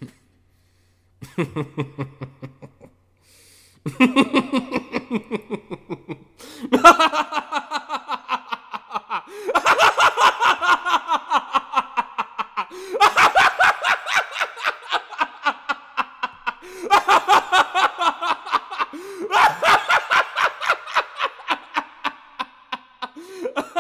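A man laughing in about seven long fits of rapid pulses, a few each second, with short breaks between them. A few seconds in the laughter grows louder and higher, into a wild, manic cackle.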